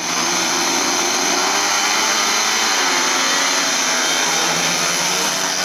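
Several speedway bikes' 500cc single-cylinder methanol engines running at high revs as the bikes race. Their pitch falls about halfway through, then climbs again.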